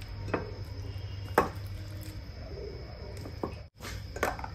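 Raw chicken pieces being moved by hand from a steel bowl into a glass container: a few short knocks, the loudest about a second and a half in, over a low steady hum.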